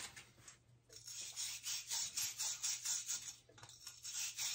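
Copper plumbing fitting being scrubbed clean by hand before soldering: quick back-and-forth rubbing strokes, about five a second, starting about a second in, with a brief pause near the end.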